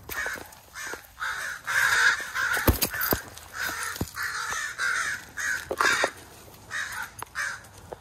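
Crows giving a rapid series of harsh caws, about two a second, the alarm calling of parent crows over their grounded fledgling as it is picked up. A few sharp knocks from the bird being handled come about three seconds in.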